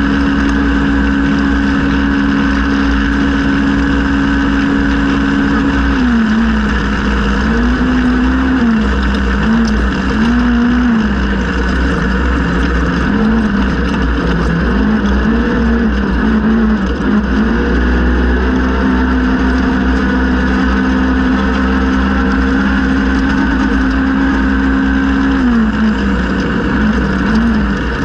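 Polaris RZR XP 1000 side-by-side's naturally aspirated parallel-twin engine running hard under race throttle. The engine note holds at steady high revs for the first several seconds and again through the second half. In between, and again near the end, it dips and climbs repeatedly as the throttle is lifted and reapplied, all over a constant low rumbling noise.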